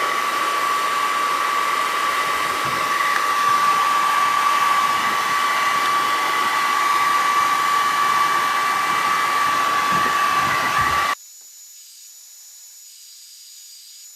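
Hair dryer running steadily on its warm setting, blowing through a cut-off plastic bottle into an air mattress to inflate it, with a steady whine over the rush of air. It cuts off abruptly about eleven seconds in, leaving only a faint hiss.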